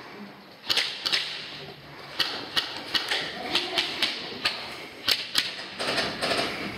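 Airsoft guns firing in an exchange of shots: a dozen or more sharp cracks at an irregular pace, singles and quick pairs, starting about a second in.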